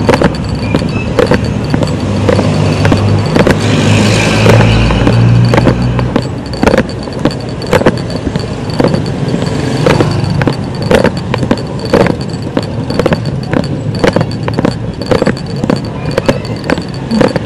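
Road traffic going by: motor vehicle engines, with a low rumble strongest in the first few seconds as vehicles pass close. From about six seconds in, regular knocks a bit under twice a second come in step with walking.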